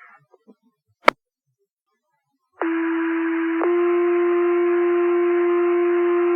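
Two-tone sequential fire paging tones over the dispatch radio: a tone of about a second, then a second tone at a slightly different pitch held for about three seconds, the alert that sets off the station's pagers for the call. A sharp radio click about a second in.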